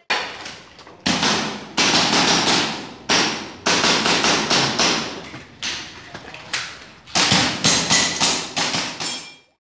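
A string of sharp airsoft pistol shots, more than a dozen, fired in irregular groups with quicker runs near the end, each cracking and ringing off the bare concrete walls of the room.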